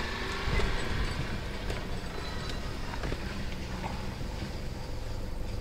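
A vehicle's engine and tyres rumbling low and steadily as it creeps along a rough village track, with scattered clicks and knocks from the wheels and body.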